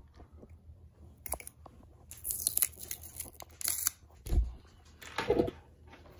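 Tape seal on a plastic deli cup being cut with a hobby knife and peeled off: light scraping and clicks, then two short tearing rips about two and three and a half seconds in, followed by a dull thump of the cup being handled.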